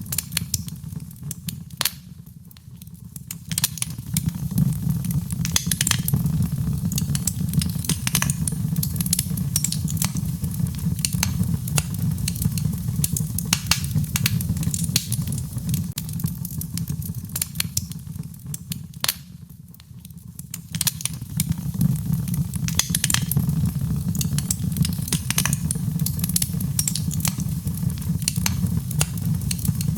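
Fire burning in a fireplace: a steady low rumble of flames with frequent sharp crackles and pops. The sound dips briefly twice, about two seconds in and again around twenty seconds in.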